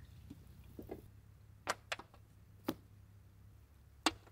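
Boiled palmyra sprouts being split apart by hand: a few sharp snaps, the loudest near the end.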